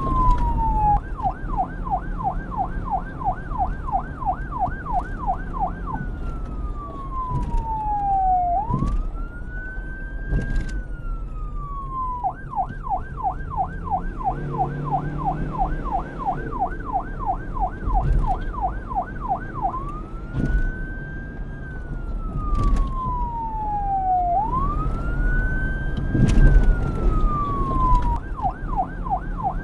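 Electronic police siren switching back and forth between a slow wail, a long glide up and then down, and a fast yelp of about four warbles a second, over a low rumble.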